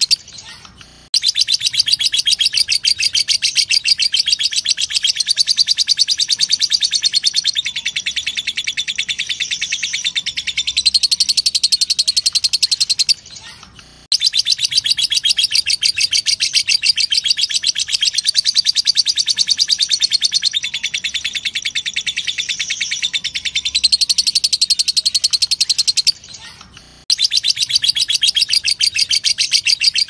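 Lovebird 'ngekek': a long, fast, unbroken chatter of rapid high repeated notes, running for about twelve seconds at a time. Brief pauses of about a second break it near the start, about halfway through and near the end.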